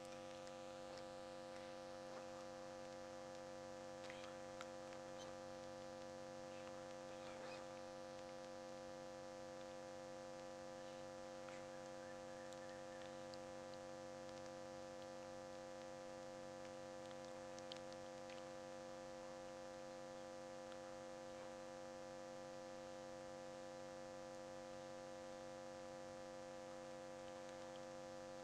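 Faint steady electrical hum made of several steady tones, with a few faint ticks and rustles here and there.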